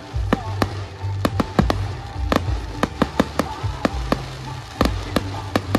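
Aerial fireworks shells bursting into crackling stars: a quick, irregular run of sharp cracks and pops, about three to four a second, over a low rumble.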